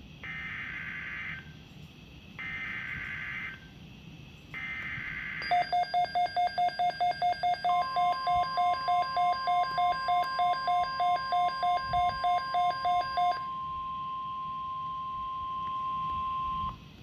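NOAA Weather Radio Emergency Alert System signal: three short bursts of SAME digital header tones. These are followed by a receiver's alert beeping about four times a second for several seconds. Over the beeps comes the steady 1050 Hz warning alarm tone, which holds until just before the watch announcement.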